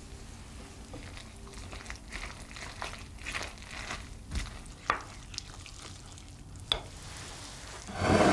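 Wooden spoon stirring a batter of grated vegetables, flour and eggs in a glass bowl: wet, crackly mixing with a few sharp clicks, and a much louder burst of noise near the end.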